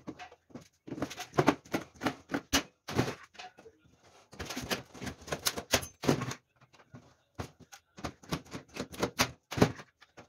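Thin galvanized sheet metal being handled and worked by hand, with hand tools set down on it: irregular bursts of sharp clicks, taps and light knocks.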